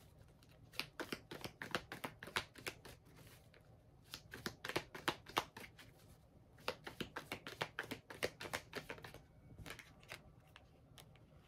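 A deck of tarot cards being shuffled by hand: faint, quick runs of small card clicks, coming in several bursts with short pauses between them.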